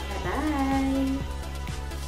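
Background music with a steady beat, about two beats a second, under a held, bending melody line and a steady bass.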